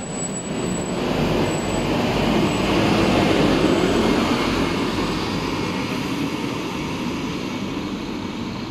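Scania K230UB Euro V single-deck diesel bus pulling away from the stop. Its engine and tyre noise swells about three seconds in as it passes, then fades as it drives away down the road.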